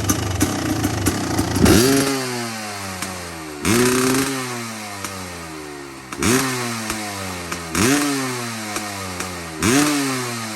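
Kawasaki KX500 single-cylinder two-stroke engine idling, then revved in five sharp throttle blips, about two seconds apart. The pitch jumps up each time and falls slowly back.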